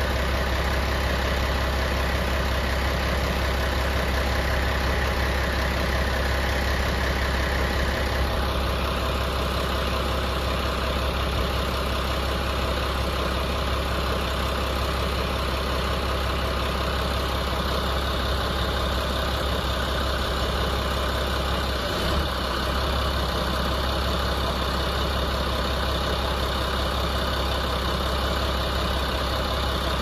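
Heavy diesel engine idling steadily with a strong low hum, most likely the wheel loader that carries the tyre handler. A higher hiss drops away about eight seconds in.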